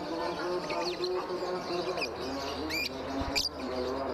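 Young lutino lovebird giving a few short, high, sharp chirps, one of them a quick rising sweep.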